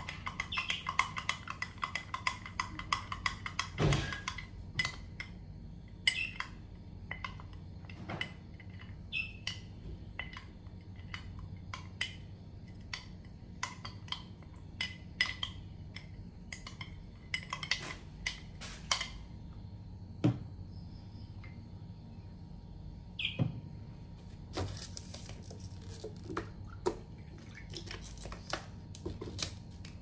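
Irregular clinks and taps of a spoon against dishes, scattered throughout. A young bird chirps rapidly and high-pitched during the first four seconds, and gives one more short call about two-thirds of the way through.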